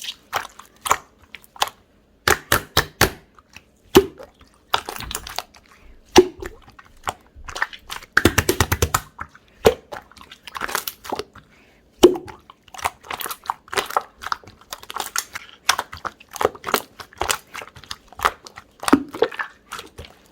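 Chewy, opaque chapssaltteok-style slime being pressed, stretched and folded by hand: irregular wet clicks, pops and squelches, with a quick run of small popping clicks near the middle as air pockets burst.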